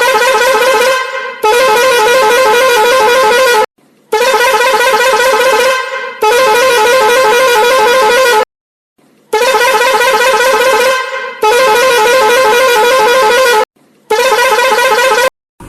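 Loud horn blasts with a quick wavering pitch, each one to two seconds long, coming in pairs with short silences between. There are seven blasts, and the last cuts off abruptly.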